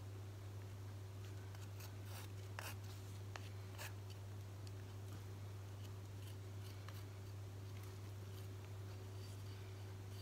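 Faint scrapes and light clicks of a wooden craft stick smoothing thick emulsion paint over a tile, mostly in the first few seconds, over a steady low hum.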